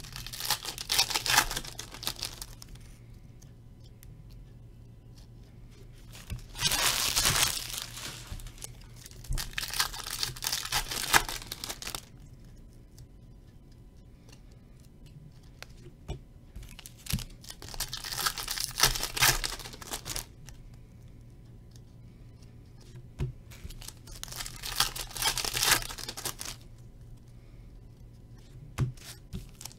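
Stuck-together glossy trading cards being peeled apart and flipped through by hand, a crackling, tearing sound that comes in repeated bursts of a couple of seconds with quieter gaps between. The cards are sticking to each other.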